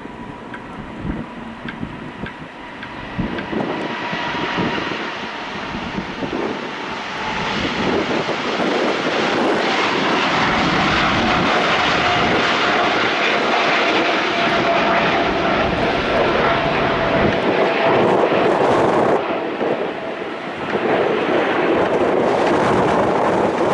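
Boeing 747-8's four GE GEnx turbofan engines at takeoff power as the jet departs: a jet roar that builds over the first several seconds and then holds loud, with a whine in it that slowly falls in pitch.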